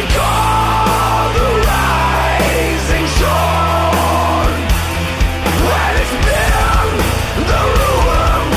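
Heavy rock music with distorted guitars, a driving drumbeat and shouted vocals.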